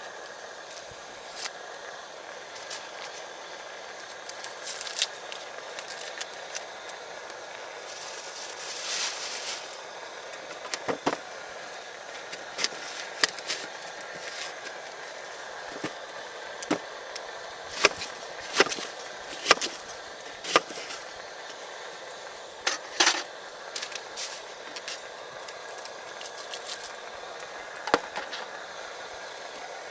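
Wood fire crackling, with a steady hiss and irregular sharp pops and snaps, a few of them louder.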